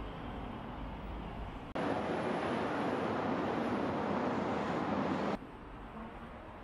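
Street traffic noise, with a louder, steady rush from about two seconds in that cuts off abruptly about a second before the end, leaving quieter indoor room tone.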